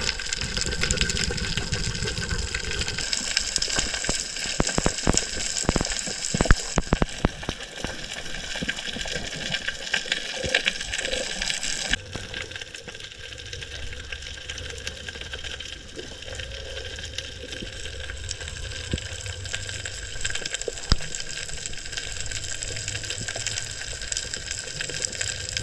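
Rushing, splashing water. A cluster of sharp clicks and knocks comes between about four and seven seconds in, and the sound changes abruptly twice.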